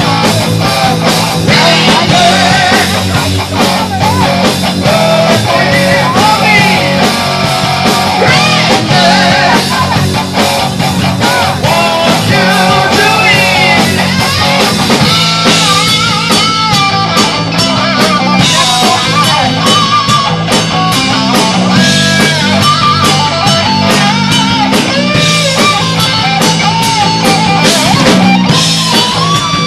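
Live rock band playing loud distorted electric guitar over bass and a drum kit, with some singing.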